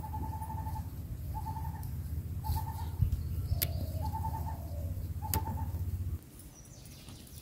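A bird calling over and over in short, even-pitched notes, about one a second, over a low rumble that cuts off abruptly about six seconds in. There are a couple of sharp clicks in between.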